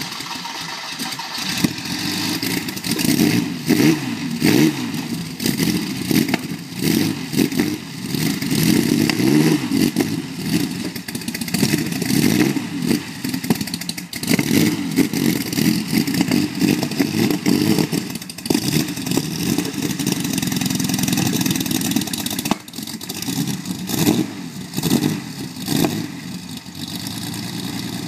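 Air-cooled flat-six engine of a 1977 Porsche 911 twin-turbo running at low speed, revved up and down again and again while the car is manoeuvred. It briefly drops back about three-quarters of the way through, then picks up again.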